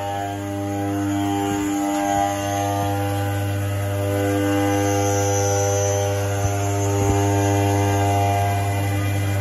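Retrofitted Brother TC-227 CNC machining center running, a steady electric hum made of several steady pitched tones, with a faint high whine coming and going and a couple of light clicks about two-thirds of the way through.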